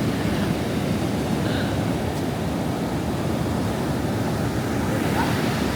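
Steady rush of ocean surf mixed with wind noise on the microphone.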